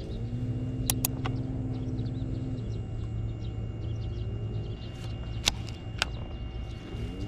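Soft background music with a steady low hum and sustained tones. It is broken by four sharp clicks in two close pairs, about a second in and again around five and a half to six seconds in.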